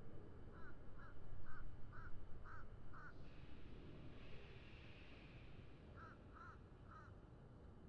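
A bird calling in short, evenly spaced calls about two a second: six in a row, a pause, then three more, over a low steady rumble.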